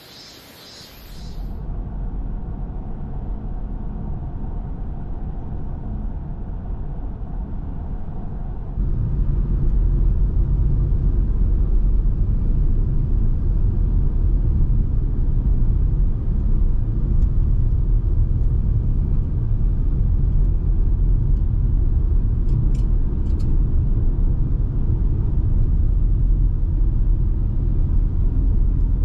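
Car driving along a road: a steady low rumble of engine and tyre noise, which steps up louder about nine seconds in.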